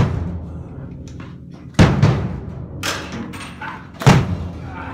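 Drums struck by thrown tennis balls: three heavy hits a couple of seconds apart, at the start, just before two seconds in and about four seconds in, each leaving a low booming ring, with a lighter hit in between.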